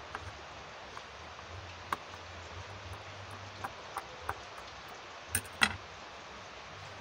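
Small clicks and taps of a screwdriver and wire ends against a plastic screw-terminal block, scattered and faint over a steady hiss, with two sharper clicks about five and a half seconds in.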